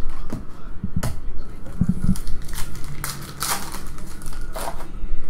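Foil trading-card pack wrapper crinkling and tearing in the hands in several irregular bursts, with a few soft knocks from handling about two seconds in.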